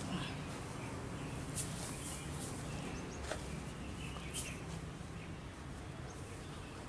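Quiet background with faint bird chirps and a few short, light clicks and rustles.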